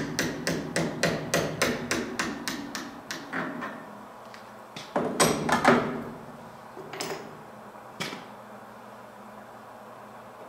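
Light hammer taps on a Snap-On VR300 valve grinder's spindle assembly during reassembly: a quick run of even taps, about four a second, fading away, then a louder clatter of knocks and two single knocks.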